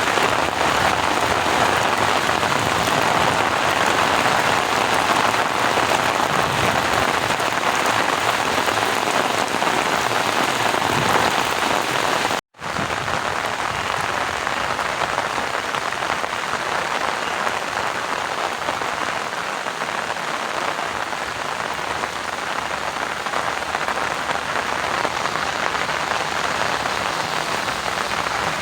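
Steady rain falling on flooded rice paddies, an even hiss of drops. About halfway through it cuts out for a split second, then resumes a little softer and duller.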